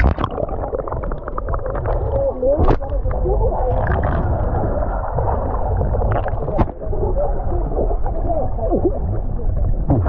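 River water heard with the microphone submerged: a muffled low rumble of moving water with gurgling bubbles and all the high sounds cut off. Two sharp knocks, one about three seconds in and one near seven seconds.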